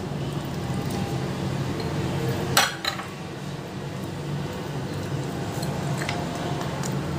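Kitchen handling sounds: a utensil or dish clinks sharply once about two and a half seconds in, followed by a few lighter clicks, over a steady low hum.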